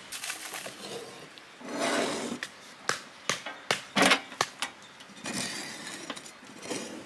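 Knife scoring a whole raw fish in a metal basin: scraping and rustling as the blade cuts the skin and the fish is shifted, with a run of sharp clicks and knocks against the metal bowl in the middle.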